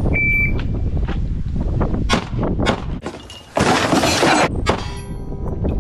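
Electronic shot-timer beep, one short high tone, then a string of sharp pistol shots. The first shot comes about two seconds after the beep and the rest follow unevenly. About a second of loud hissing noise sits between the shots near the middle.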